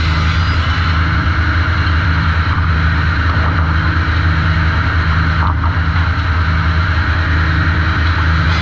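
Sawmill machinery at the trim saw running steadily, a loud, even low hum with no clear change.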